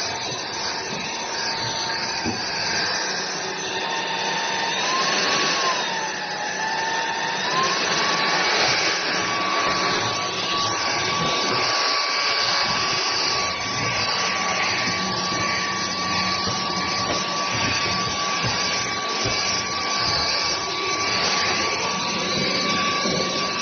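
TVTAU T10 Pro cordless stick vacuum running steadily. Its motor whine wavers about five seconds in, then holds at a slightly higher pitch from about eight seconds on.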